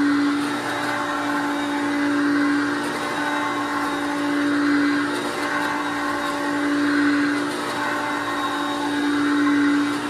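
A 1990 Hoover Concept One upright vacuum cleaner running on carpet, a steady motor hum and whine that swells and dips every two to three seconds as it is pushed forward and pulled back.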